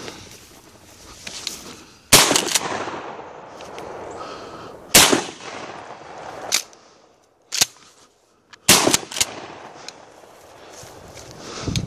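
Three shotgun shots from a Winchester SXP pump-action shotgun, about three seconds apart, each loud and sudden with a short tail of echo. Shorter, quieter clacks fall between the second and third shot.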